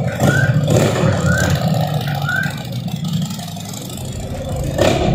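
Harley-Davidson Sport Glide's Milwaukee-Eight V-twin, on stock cams and breathing through a 2-into-2 slash-cut exhaust, running as the bike rides off, its sound fading with distance from about three seconds in. A short louder burst comes near the end.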